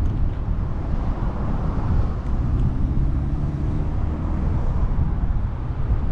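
Steady wind rumble on the microphone of a camera riding on a moving bicycle, mixed with the low hum of road noise.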